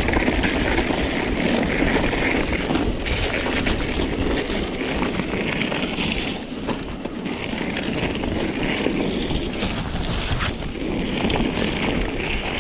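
Wind rushing over an action camera's microphone while a mountain bike rolls over a rough trail, with scattered clicks and knocks throughout.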